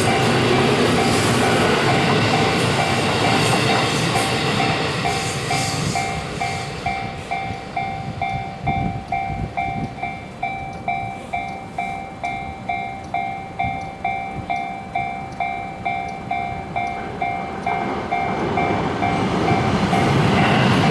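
Japanese railroad crossing's electronic warning bell dinging at about two and a half strokes a second. Over it a passing train's running noise fades within the first five or six seconds, and the rumble of another train builds again near the end.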